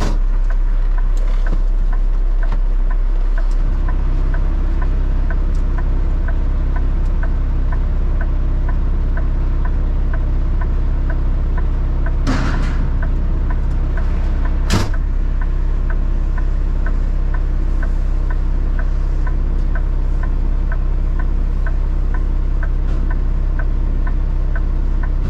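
Truck engine running steady, heard from the cab; its note changes about four seconds in. A light regular ticking repeats two or three times a second, and there are two knocks about halfway through.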